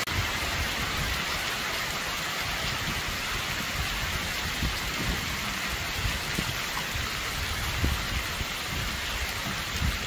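Heavy rain pouring down: a steady, even hiss of countless drops.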